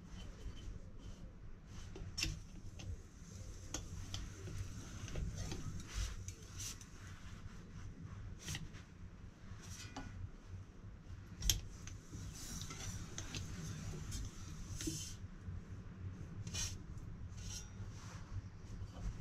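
Hand-operated sheet-metal slip roll curving a thin metal sheet for an expansion chamber's belly: scattered light metallic clicks, clinks and rubbing of the sheet against the rollers, with one louder clank a little past the middle.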